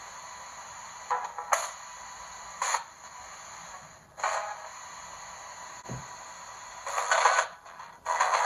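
Small pocket FM radio's speaker hissing with static, broken by several short, louder bursts of sound as the homemade FM transmitter is tuned toward the radio's frequency.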